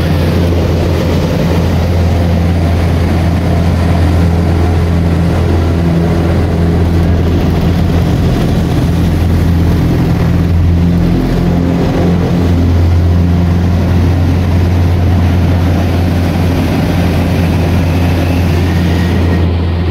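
Engine and propeller of a light single-engine propeller aircraft droning steadily, heard from inside the cockpit. The note shifts and wavers briefly about halfway through.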